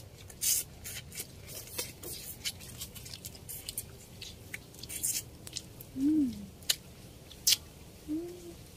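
Lip smacks and chewing clicks of people eating with their hands, an irregular scatter of short sharp ticks, with two short low hums in the second half.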